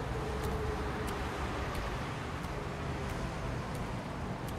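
Steady low rumble of distant traffic, with faint, evenly spaced ticks about one and a half times a second.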